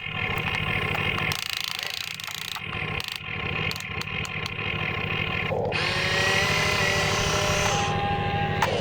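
Radio-controlled model construction machines running: a steady mechanical hum, a few sharp clicks early on, and from about six seconds in a high whine of small electric motors and a hydraulic pump, rising slightly in pitch.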